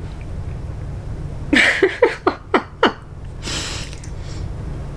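A woman's short embarrassed laugh, about five quick falling 'ha' pulses, followed by a breathy exhale, over a steady low room hum.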